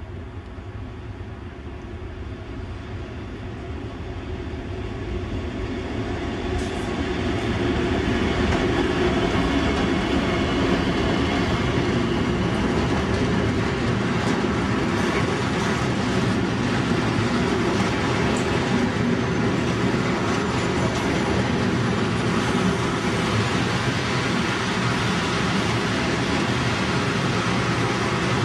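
Nohab My-class diesel-electric locomotive with its EMD two-stroke V16 engine running under power as it approaches, the engine growing louder over the first eight seconds and then staying loud as it passes close by. Wheels clatter over the rail joints beneath it.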